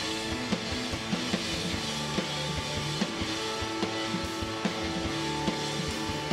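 Live rock band playing an instrumental passage: drum kit keeping a steady beat under electric guitar and keyboard, with no vocals.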